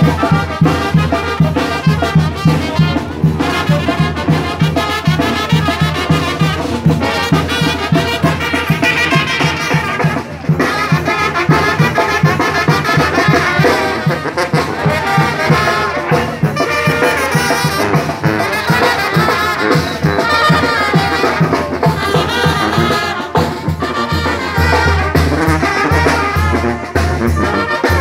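Brass band playing live: trumpets and other horns over a sousaphone's steady beat in the bass.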